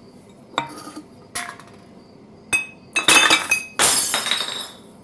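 Glass objects clinking a few times in short knocks, then two louder, longer crashes with a ringing clatter about three and four seconds in.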